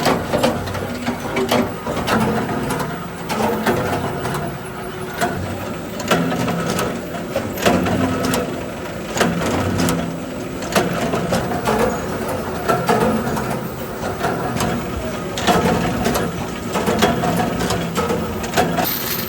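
Workshop machinery running, with a steady hum and many irregular clicks and knocks.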